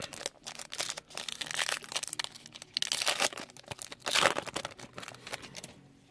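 Crinkling and rustling of a plastic trading-card pack wrapper being handled, in irregular bursts, loudest about four seconds in and stopping near the end.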